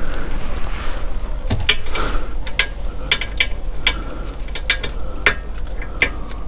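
Ratchet wrench clicking in short, irregular runs of sharp metallic clicks, tightening the gearbox filler plug back in after refilling.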